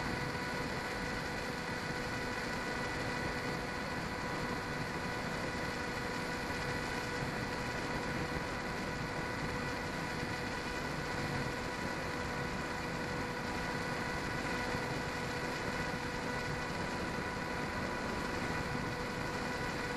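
The model plane's 1600kv electric motor and propeller run at a steady cruise throttle, a constant even whine. Wind rushes over the onboard camera's microphone throughout.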